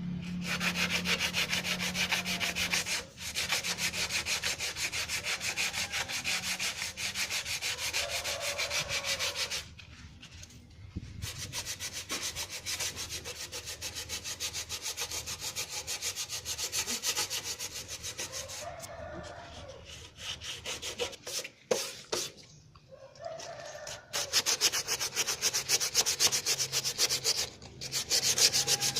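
Rapid, even scraping strokes of a hand tool working a surface, pausing briefly about a third of the way in and again for a few seconds two-thirds through, with a low hum at the start and near the end.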